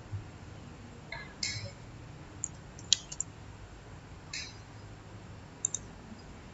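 Scattered clicks and short scratchy sounds from working a computer mouse on a desk, with one sharp click about three seconds in and a quick double click near the end, over a faint steady hiss.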